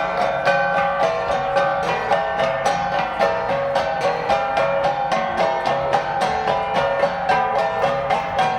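Flat gongs (gangsa) played as an ensemble in a quick, even, interlocking rhythm of about three to four strokes a second, several ringing pitches sounding together.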